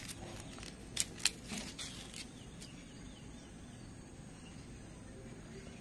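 A few sharp crackles of dry, papery onion skins being handled and peeled in the first two seconds, then only faint steady background noise.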